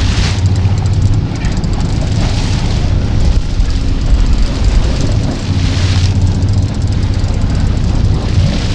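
Sportfishing boat's engines running with a steady low hum, under a rushing wash of water and wind that swells and fades a few times.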